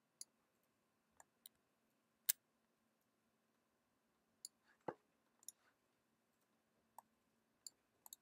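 Sparse, faint clicks of a computer mouse and keyboard, about ten spread irregularly over a near-silent room. One sharper click comes a little past 2 seconds in, and a duller knock comes near 5 seconds.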